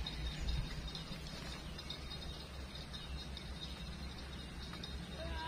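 Insects chirping in a steady high, rapid trill over a constant low rumble, with a faint bird-like call near the end.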